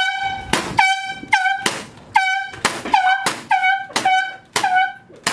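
A training pistol fired in a rapid string of shots, about two a second, in a small room. Each shot is a sharp crack followed by a brief horn-like tone, with a few bare cracks in between.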